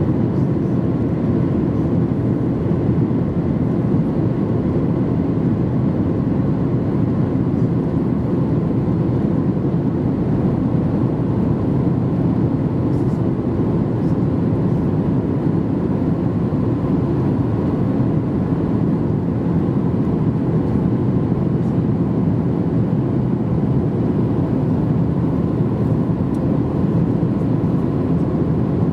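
Steady cabin noise inside a Boeing 737-800 during descent: rushing air along the fuselage blended with the low hum of its CFM56-7B engines, with a faint steady tone above it.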